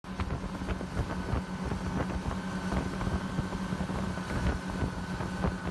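Snowmobile engine running steadily under way, with frequent knocks and jolts from riding over rough snow and ice, and wind buffeting the microphone.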